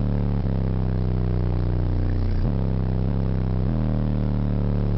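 An 18-inch Fi Car Audio BTL subwoofer in a car playing loud, deep sustained bass notes, heard from the car's roof. The notes change pitch about half a second, two and a half and three and a half seconds in.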